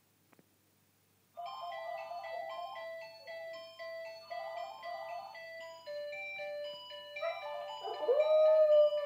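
A phone's melodic electronic ringtone starts about a second and a half in and plays on. Near the end a dog howls over it: one long howl that slides up, then holds with a wobble, louder than the ringtone.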